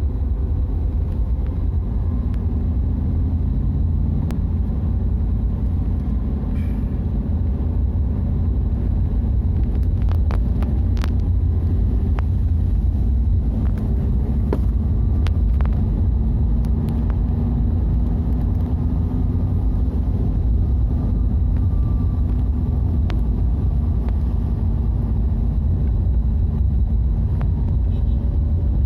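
Steady low rumble of a motor vehicle running, with a faint engine hum above it and a few light clicks partway through.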